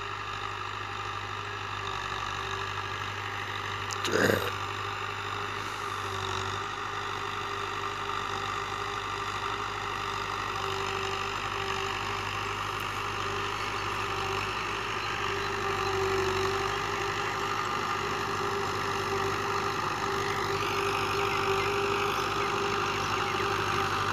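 A Fiat 640 tractor's four-cylinder diesel engine runs steadily under load as it pulls a tillage implement across the field. A brief, louder sound cuts in once, about four seconds in.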